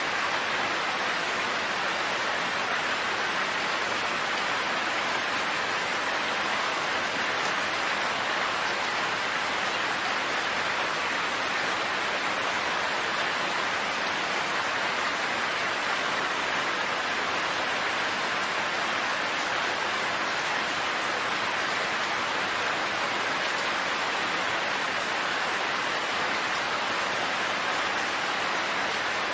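Steady rain falling, an even, unchanging hiss of drops with no thunder.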